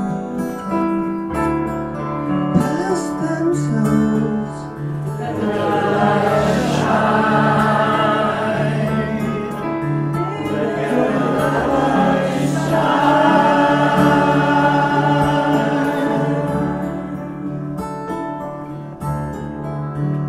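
A group of voices singing a song together, with acoustic guitar and keyboard accompaniment. The voices swell in about five seconds in and thin out again near the end.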